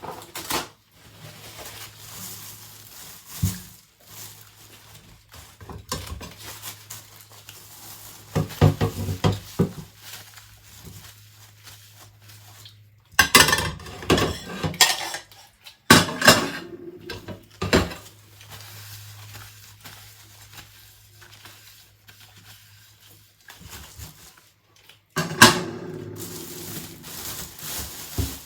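Dishes and cutlery being handled while washed by hand: scattered clinks and clatters, with louder bursts of clattering about halfway through and again near the end, over a faint steady hum.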